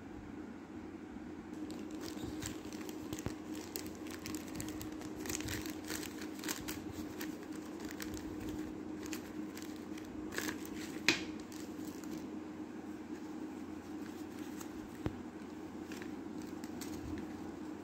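Clear plastic zip bag crinkling and rustling as it is handled and opened and the paper sachets inside are pulled out, with a sharp snap about eleven seconds in. A steady low hum runs underneath.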